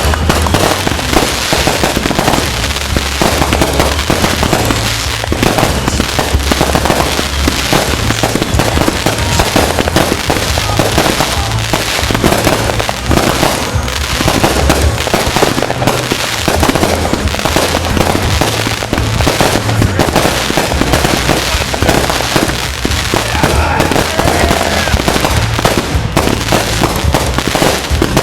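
Dense, continuous barrage of fireworks: many bangs and crackles overlapping with no break, with faint whistles rising near the end.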